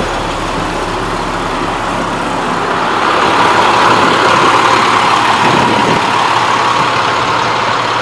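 International DT466E 7.6-litre inline-six diesel engine of a 2004 Blue Bird school bus idling steadily, growing somewhat louder about three seconds in.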